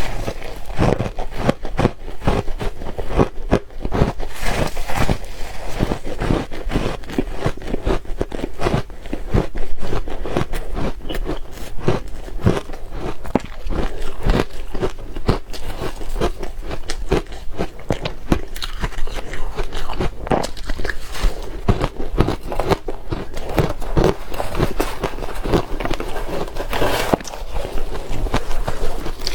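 A person biting and chewing soft ice and crushed ice: a dense, continuous run of close crunches with no pauses.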